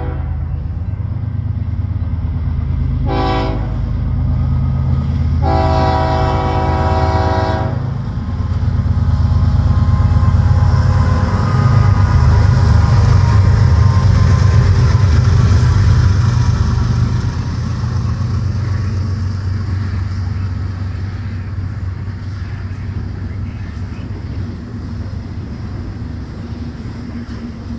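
BNSF freight train's diesel locomotive air horn sounding a short blast, then a longer one of about two seconds. The locomotives' heavy diesel engine rumble then swells as they pass close by and eases into the steady rolling noise of double-stack intermodal cars.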